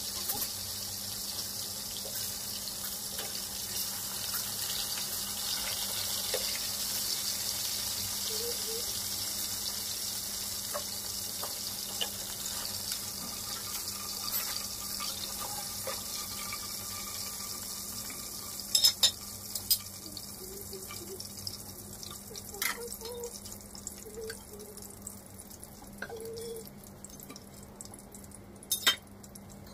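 Whole fish frying in hot oil in a wok: a steady sizzle that grows weaker in the second half as the fish are lifted out. Sharp clinks of a metal ladle against the pan about 19 seconds in and near the end.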